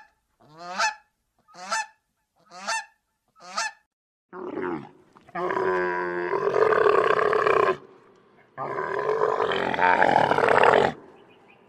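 Four short honking waterfowl calls, about one a second, then a shorter call and two long, loud calls from a larger animal, each lasting over two seconds.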